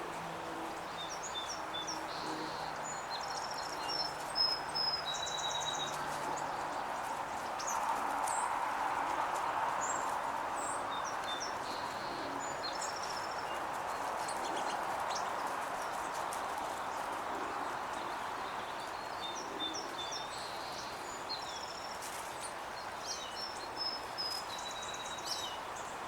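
Small songbirds chirping and calling in short, scattered notes over a steady background rush that swells about 8 seconds in.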